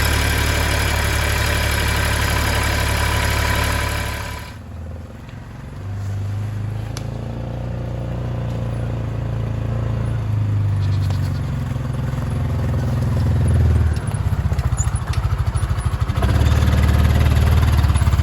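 Mahindra 1626 compact tractor's diesel engine running shortly after a cold start at about 37 degrees. About four seconds in the sound drops suddenly, then the engine note rises and falls as the engine speed changes, and it is loud and steady again near the end.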